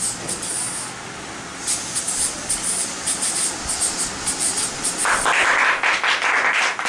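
Mouth-made hissing and rushing noise with fast, even pulses, a train-like vocal sound effect. It turns louder and harsher about five seconds in.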